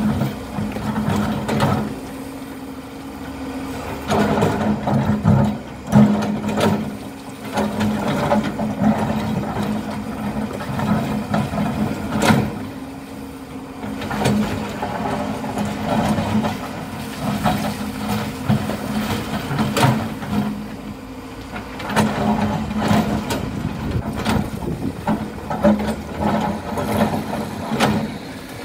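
Excavator's diesel engine running steadily under load, with irregular knocks and clanks from the machine at work.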